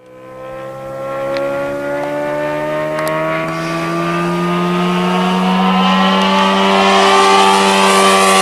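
Saito FG-57 four-stroke petrol engine of a large RC model aircraft, running at high power with a steady drone that slowly rises in pitch and grows louder.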